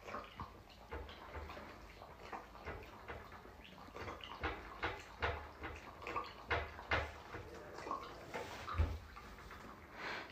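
A Tamaskan dog lapping water from a tall drinking glass: a long run of short wet laps, a few a second, getting louder partway through.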